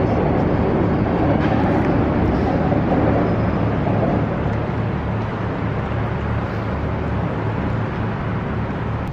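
Steady low engine rumble with a hum under a noisy hiss, easing a little about four seconds in and cutting off at the end.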